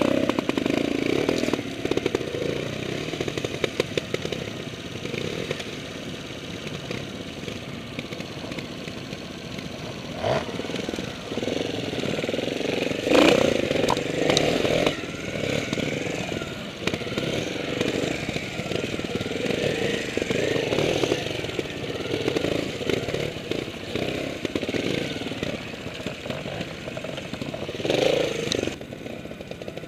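Trials motorcycle engines running at low speed on rough ground, rising and falling with the throttle. A few sharp knocks come through, the loudest about 13 seconds in.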